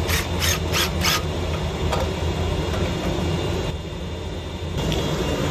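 Steady low mechanical hum, with four quick evenly spaced taps in the first second or so.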